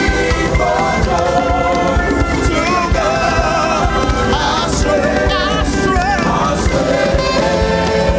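Live gospel worship music: a choir singing a wavering, ornamented melody over a full band with a steady beat.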